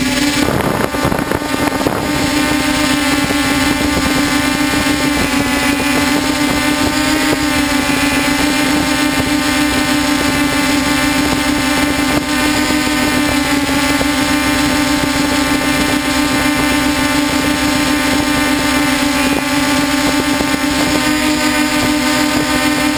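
The motors and propellers of a DJI F550 hexacopter running in flight, heard close up from the camera on board as a loud, steady hum. The pitch wavers slightly as the throttle shifts. The first couple of seconds are rougher and gustier.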